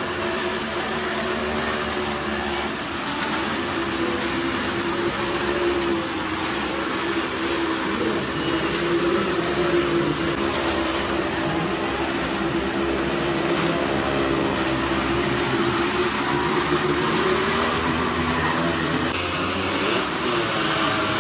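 Motorcycles riding round the near-vertical wooden wall of a well-of-death pit, their engines droning steadily at high revs, the pitch wavering slightly as they circle.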